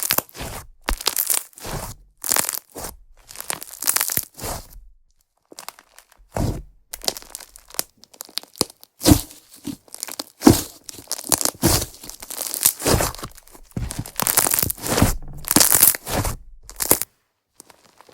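Slime being squished and pulled by hand, giving repeated bursts of crackling and popping. There is a short pause about five seconds in, and the sound stops shortly before the end.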